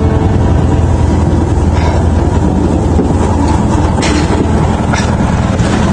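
Vehicle engine and road noise while driving along: a steady low drone, with a few faint knocks.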